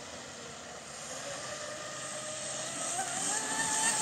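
Volantex Atomic RC speedboat running at speed, its brushless electric motor and propeller giving a high whine that rises in pitch and gets louder over the last couple of seconds.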